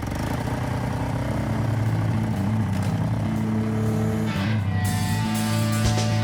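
Rock music with a heavily distorted, fuzzy guitar, its low notes stepping in pitch and the sound filling out about two-thirds of the way in.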